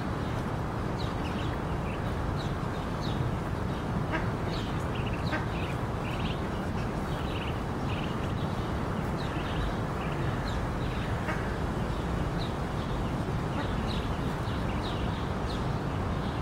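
Ruddy shelduck ducklings peeping: many short, high chirps in loose clusters, over a steady low background rumble.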